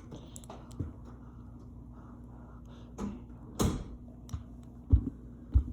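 Scattered clicks and knocks from handling plastic building-set pieces, with a short rustle about three and a half seconds in and a steady low hum underneath.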